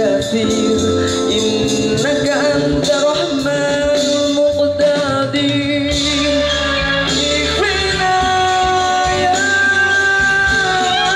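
Live band music with singing: a voice holds long, wavering notes over drums and other instruments.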